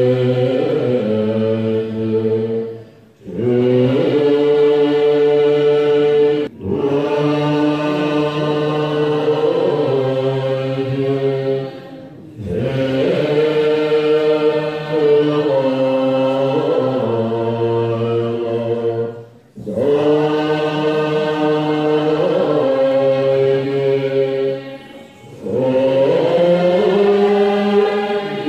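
A large assembly of Tibetan Buddhist monks and nuns chanting together in unison: a slow melodic chant of long held phrases that step between a few pitches. There are short pauses for breath every four to seven seconds.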